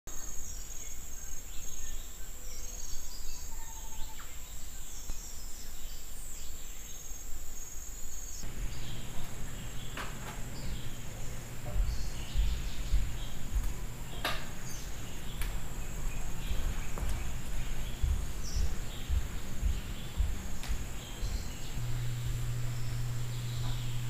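Insects buzzing steadily at a high pitch, with scattered bird chirps. A few sharp clicks and low thumps come and go, and from about eight seconds in a low steady hum joins, growing stronger near the end.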